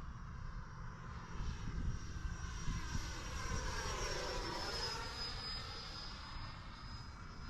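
Electric ducted-fan whine of an FMS Futura 64 mm RC jet making a pass. The whine grows to its loudest about four to five seconds in, then drops slightly in pitch as it goes by. Wind rumbles on the microphone throughout.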